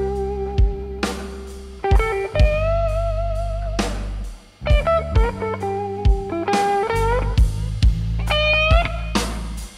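Live blues band: an electric guitar plays a lead line of held notes with vibrato and string bends, over electric bass and a drum kit.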